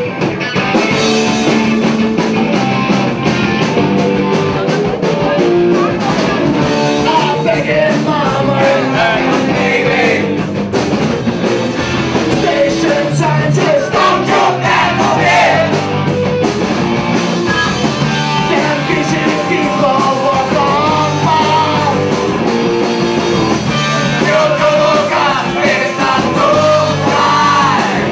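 Live rock band playing, with voices singing over the music.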